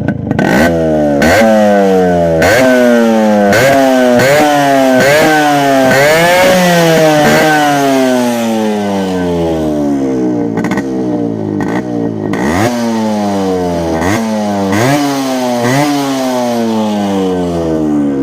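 Yamaha RX100 two-stroke single-cylinder engine running with its silencer mesh removed, revved in about a dozen quick throttle blips, each a sharp rise in pitch that falls back to idle. Very loud.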